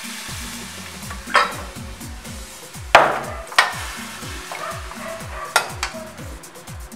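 Water poured into a hot aluminium caldero of browned goat meat sizzles, then a metal ladle stirs the stew and clanks against the pot several times. Background music with a steady beat runs underneath.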